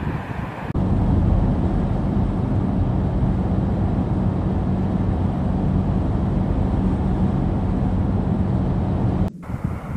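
Car travelling at speed on a motorway: a steady road and engine drone with a low hum. It starts abruptly about a second in and cuts off suddenly near the end.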